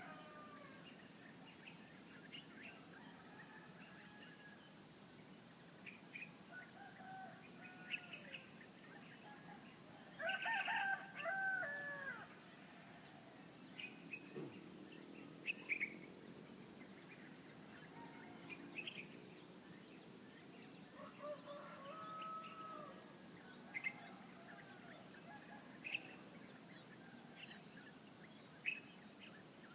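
A rooster crows once, loudly, about a third of the way in, and fainter crows come from other roosters. Short bird chirps are scattered throughout over a steady high-pitched hiss.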